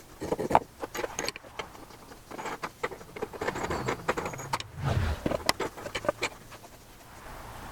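Irregular clicks, knocks and rattles of wooden parts and metal hardware being handled in the woodshop, with a few louder wooden knocks.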